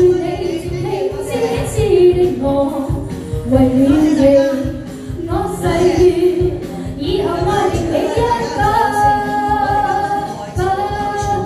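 A woman singing a pop song into a handheld microphone over a backing track with a steady beat, holding long notes in the second half.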